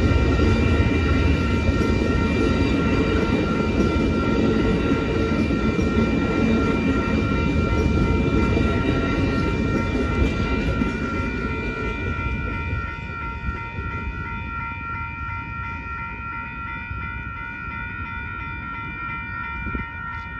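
Amtrak Superliner passenger cars rolling past on the rails with a heavy low rumble that fades after about twelve seconds as the last car clears. Over it a railroad crossing warning bell rings steadily and stops abruptly at the very end.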